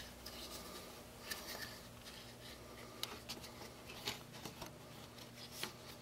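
Faint handling sounds, scattered small clicks and rubbing, as a metal alligator clip and a wire connector are worked onto a starter motor's terminal, over a low steady hum.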